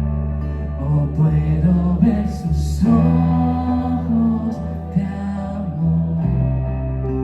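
Live worship band playing a slow song: held bass notes and chords from keys and guitars under singing, with a brief cymbal wash about two seconds in.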